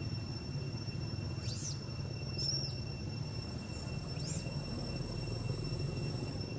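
Outdoor ambience: a steady low rumble under a steady high insect drone, with three short high chirps at about one and a half, two and a half and four seconds in.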